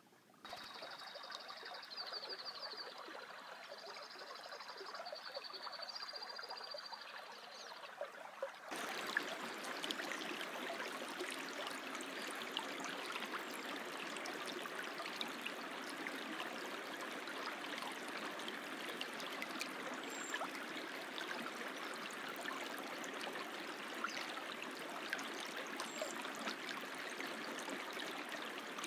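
Small forest creek trickling over logs and stones, with a bird's high, rapid trills repeating over the quieter first part. About a third of the way in the water sound jumps suddenly to a louder, fuller steady run.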